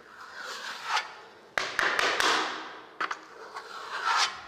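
Steel plastering trowel scraping across fresh lime-based decorative plaster on a wall in about three long, light smoothing strokes, with a few sharp taps as the blade meets the surface.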